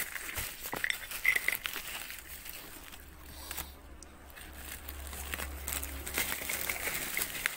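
Bubble wrap and a plastic bag crinkling and crackling as hands unwrap a parcel. The crackling is busy for the first couple of seconds, eases off in the middle and picks up again near the end.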